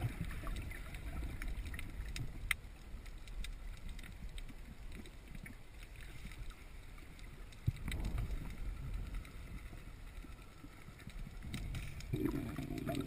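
Underwater sound picked up by a camera in its waterproof housing as the diver swims: a low rumbling swish of moving water with scattered faint clicks. It swells louder about eight seconds in and again near the end.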